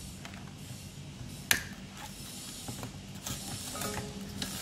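Plastic clicks and rattles from an Audi A4 B8 wing-mirror assembly being handled and unclipped while its turn-signal wiring is freed: one sharp click about a second and a half in, and lighter ticks near the end.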